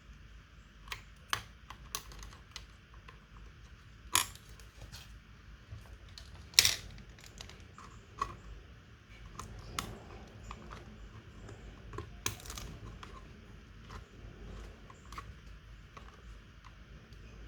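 Irregular light clicks and taps of small hard plastic and metal parts being handled on a laptop, with a couple of louder knocks.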